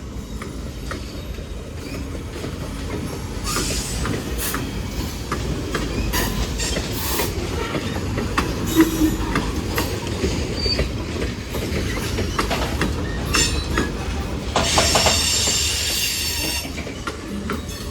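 Norfolk Southern manifest freight train rolling past: a steady low rumble of wheels on rail, with repeated clicks and brief high-pitched wheel squeals, the longest and loudest near the end.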